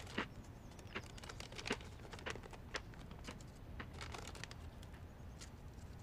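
Crunchy corn snack chips being bitten and chewed: soft, irregular crunches and crackles, a few each second.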